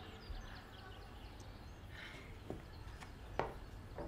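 Quiet room tone with faint, high bird chirps and a few light taps in the second half.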